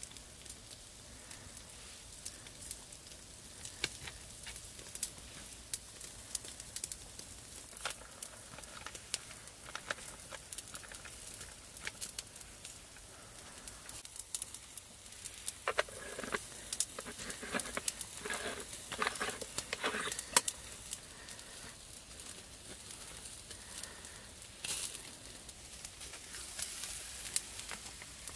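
Wood fire crackling, with scattered sharp pops over a low steady hiss. From about sixteen to twenty-one seconds in there is a denser stretch of louder, irregular noises.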